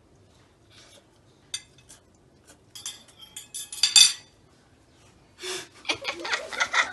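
Metal fork clinking against a plate in a run of sharp clinks, the loudest about four seconds in.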